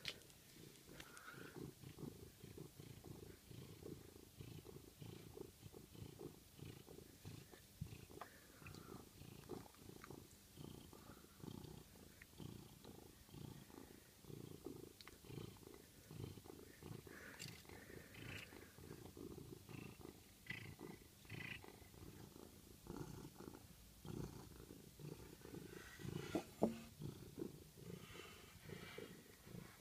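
Domestic cat purring steadily, a faint low pulsing rumble, with a few light clicks and taps over it.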